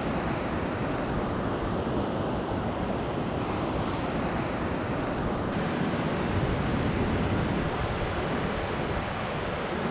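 Steady rushing noise of wind and river water, with no distinct events.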